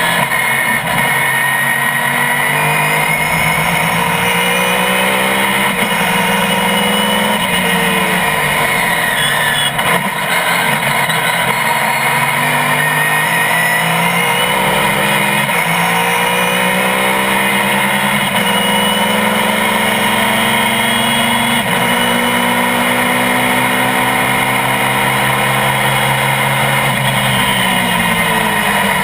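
GT-1 race car's engine at racing speed, loud throughout. Its pitch climbs through the gears and drops sharply at each upshift, with falling stretches where it slows for corners.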